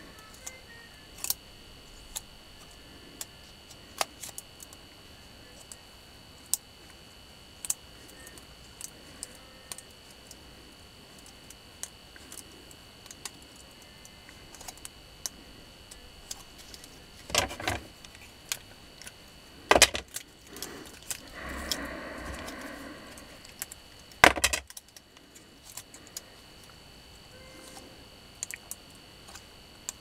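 Small clicks and light rattling from a vacuum cleaner motor armature and its paper slot insulation being handled during rewinding. A few louder clicks come in the second half, with a short rustle between them.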